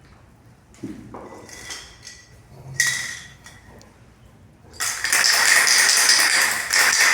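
Aerosol can of white contrast paint: a few knocks and a clink as the can is handled, then, about five seconds in, a loud, steady spray hiss as the paint is sprayed on.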